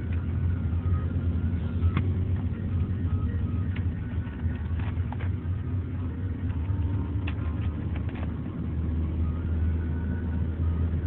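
Steady low rumble of a car heard from inside the cabin, with a few faint clicks scattered over it.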